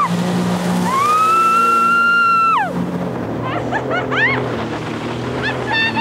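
Sea-Doo jet ski engine whining up in pitch as it accelerates, holding at high revs, then dropping off about two and a half seconds in, followed by several short blips of the throttle. Background music plays underneath.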